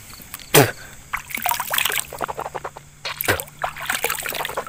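Liquid splashing and dribbling in short, irregular spatters, with two louder sudden splashes about half a second and three seconds in.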